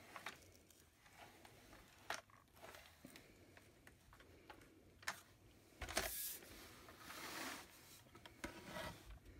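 Plastic parts of a cordless stick vacuum being handled and fitted together: a few sharp clicks and short sliding, scraping noises, with no motor running.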